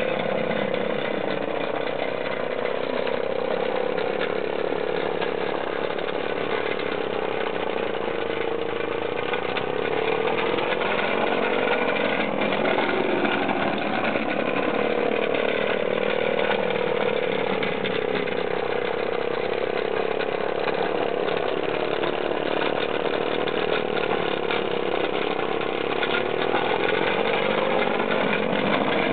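Homemade model steam tractor's small steam engine running at speed as the tractor drives along, a steady rapid buzz whose pitch slowly wavers up and down.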